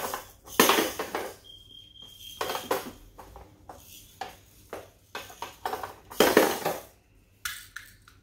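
Plastic toy race car ramp pieces knocking and clicking as they are fitted onto the tower, in irregular taps, with two longer, louder scraping noises, one about half a second in and one about six seconds in.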